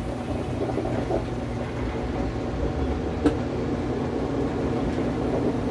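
Washing machine running with a steady mechanical noise, and one sharp click about three seconds in.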